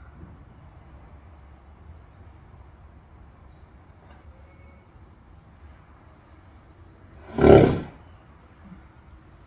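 A horse lying down in deep relaxation gives one loud, short snoring groan on an out-breath, about seven and a half seconds in. Faint bird chirps sound earlier on.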